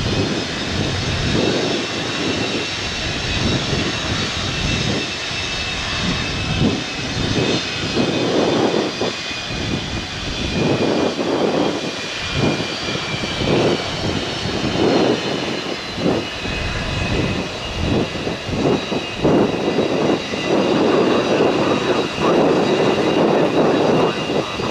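Delta MD-88's rear-mounted Pratt & Whitney JT8D turbofan engines running loud, with several steady high whining tones over a rough, uneven roar.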